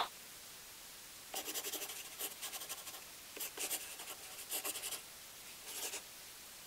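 Felt-tip marker scratching across a surface as it writes, in about five quick bursts of short strokes.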